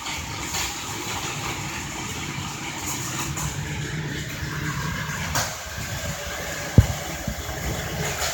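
Old-type battery-powered Plarail and Pla-Highway toy vehicles running steadily on their plastic track, with a few clicks and one sharp click about seven seconds in.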